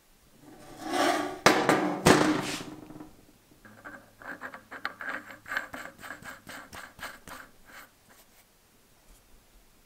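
A loud clatter with two sharp knocks in the first three seconds, then a nylon-insert lock nut being turned by hand on a steel bolt's thread, scraping and clicking about four times a second for roughly four seconds.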